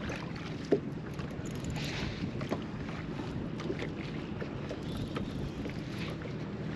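Water lapping against a bass boat's hull with wind buffeting the microphone, and one sharp knock about three-quarters of a second in.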